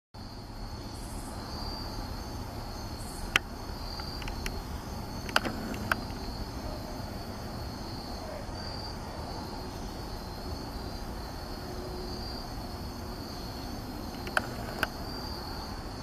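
Steady chorus of crickets or other late-summer insects trilling at a high pitch over a low background rumble, broken by a few sharp single taps, two close together near the middle and two more near the end.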